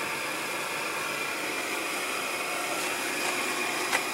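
Blower fan of an Incinolet Carefree Deluxe electric incinerating toilet, its cover off, running steadily: an even airy whir with a faint steady high tone. A single light click near the end.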